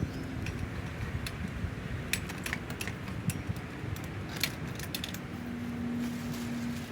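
Scattered light metallic clicks and clinks of hardware being handled, with a low steady hum starting about five seconds in.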